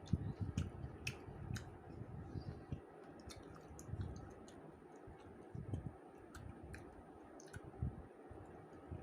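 Close-up eating sounds of a person chewing rice with fish curry: irregular small wet mouth clicks over soft, uneven chewing thuds.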